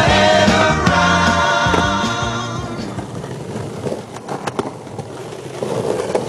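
Soundtrack music with singing fades out over the first few seconds, leaving the raw sound of a skateboard on asphalt: a few sharp clacks of the board a little past the middle, then wheels rolling on the pavement near the end.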